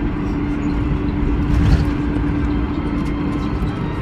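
Boeing 747-400 airliner rumbling steadily with a constant hum. A brief louder bump comes a little under halfway through.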